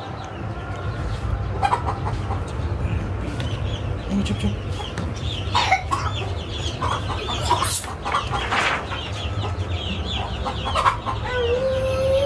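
Chickens clucking, with many short high peeping calls repeated throughout, over a steady low rumble. Near the end a drawn-out crying call starts up.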